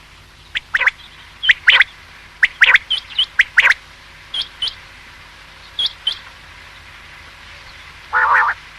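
Common quail calling: loud, short, sharp notes in quick pairs and threes, then a pause, then a short rough, buzzy burst near the end.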